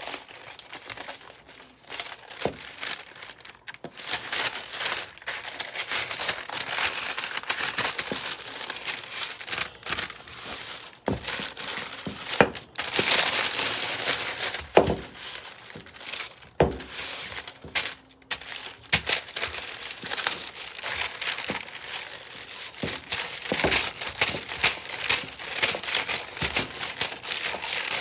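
Wooden rolling pin working pie dough under a covering sheet, the sheet crinkling and rustling continuously, with a few sharp knocks.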